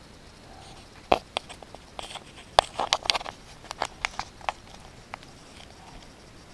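A string of about a dozen sharp, irregular clicks and taps over some four seconds, set against a quiet background.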